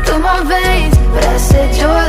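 Pop song with a sung melody over deep bass hits that drop in pitch, repeating every half second to a second.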